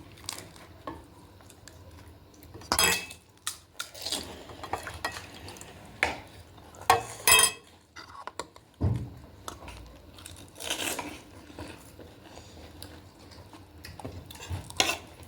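Cutlery and dishes clinking and scraping, in a string of separate sharp clinks spread through the stretch.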